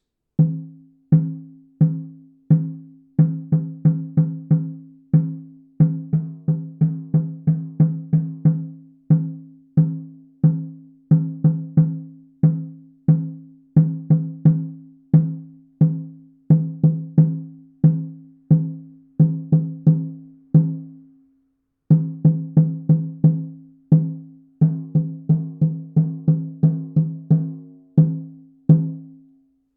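An 18-inch calfskin frame drum struck repeatedly with a padded sound-healing beater. It gives a deep ringing boom with two clear low tones, in an uneven rhythm of about two beats a second with quicker runs and one short pause after about twenty seconds. The skin is dry and pulled tight from low humidity.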